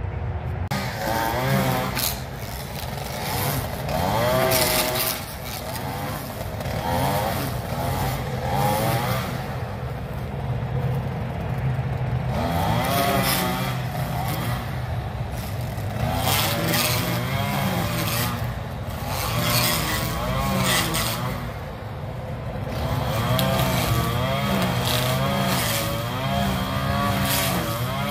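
Gas-powered string trimmer's small engine running, its pitch rising and falling over and over as the throttle is worked while cutting grass.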